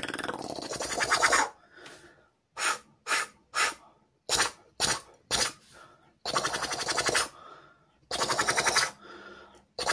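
Beatboxer's vocodah scratch: an inward click roll, the tongue vibrating while air is drawn in through closed, angled lips, giving a rattling, buzzy scratch. A long scratch at the start, then about six short quick scratches, then two more long ones and another beginning near the end.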